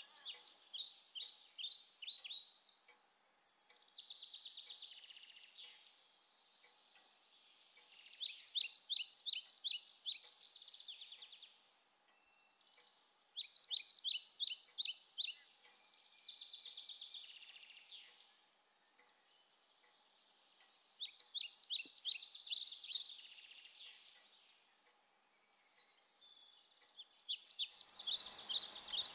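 A small creature chirping in repeated high, rapid phrases, each a couple of seconds long, coming back every five to seven seconds with a softer buzzing trill between them. A faint steady hum runs underneath.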